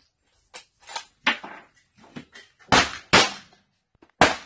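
Pistol shots on a shooting range: several fainter shots in the first half, then three loud ones, two of them about half a second apart and a third about a second later.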